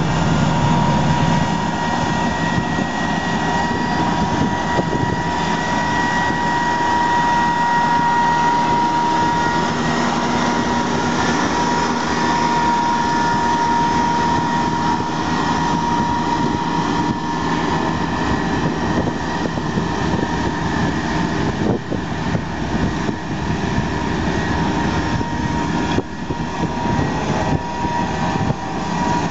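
John Deere 1600 Turbo wide area mower's 57 hp turbo diesel running steadily as the mower drives across grass with its three cutting decks down, a steady high whine sitting over the engine. The sound gets more uneven in the last few seconds.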